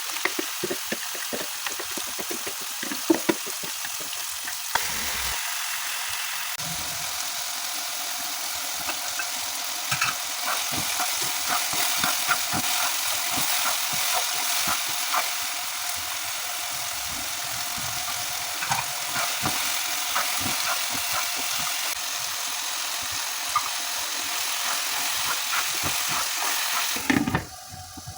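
Food sizzling as it fries in a pan, with a spoon clicking and scraping against the pan as it is stirred. The sizzle drops away abruptly near the end.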